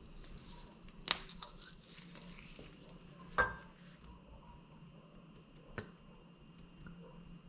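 Handling sounds from a glass hot sauce bottle being uncapped and shaken over a ceramic bowl of mayonnaise: a sharp click about a second in, a louder knock with a short ring a little before halfway, and a light tick later, over a low steady hum.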